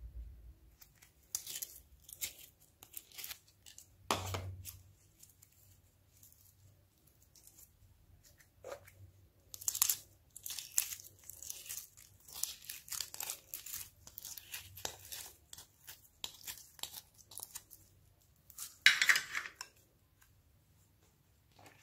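Sticky glossy slime being pulled out of a plastic tray with the fingers and pressed into a glass dish: wet crackling and tearing sounds in irregular bursts, the loudest shortly before the end.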